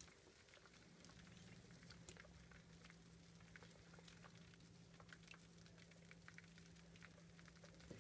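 Faint dripping and popping bubbles of water in a 2012 LG top-load washing machine's tub, scattered small ticks over a steady low hum, during a pause between water fills on the delicates cycle.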